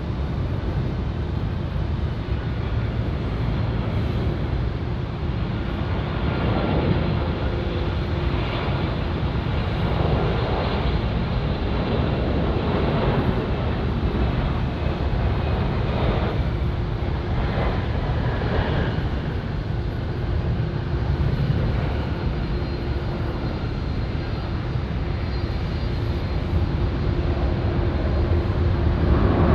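Boeing 767-300 jet airliner landing: a steady roar from its two turbofan engines with a faint whine, swelling and fading in waves, then growing louder near the end as it rolls out on the runway.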